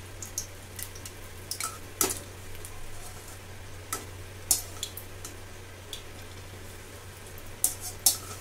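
Battered eggplant slices frying in hot oil in a steel karahi, with a soft sizzle and scattered sharp crackles and clicks as a slotted metal spatula turns them against the pan. A steady low hum runs underneath; the sharpest clicks come about two seconds in and near the end.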